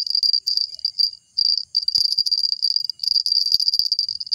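Insects trilling in a steady, high, pulsing buzz that breaks off briefly about a second in, with a few faint clicks in the second half.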